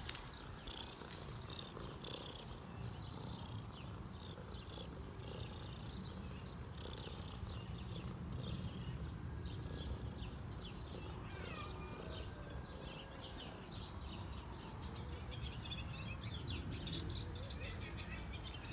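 Ginger tabby cat purring steadily as it is stroked, a low continuous rumble.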